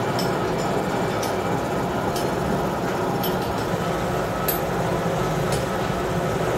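Gear hobbing machine running, its hob cutting helical teeth into a plastic gear blank: a steady mechanical hum with faint clinks about once a second.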